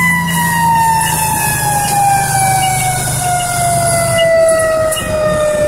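Fire truck siren heard from inside the cab, one long wail falling slowly in pitch, over the truck's engine running.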